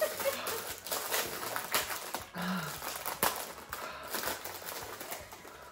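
Plastic packet crinkling and rustling in irregular sharp crackles as it is torn open and handled. A short low hum or sigh from a person about two and a half seconds in.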